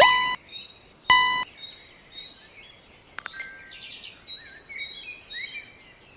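Two short ringing tones about a second apart, then faint birds chirping in scattered short calls.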